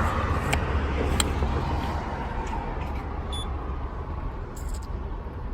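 A car's low, steady engine and road rumble, with two faint clicks in the first second or so.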